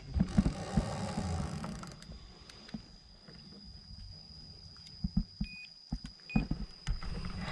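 Low rumble and knocks of handling and wind noise on a body-worn camera while an angler plays a fish on a rod, under a steady high-pitched whine, with two short beeps just past the middle.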